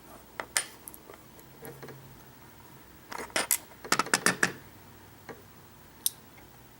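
Small sharp metallic clicks and taps from a Schlage lock cylinder, its key and a follower being handled, with a quick cluster of clicks about three to four and a half seconds in.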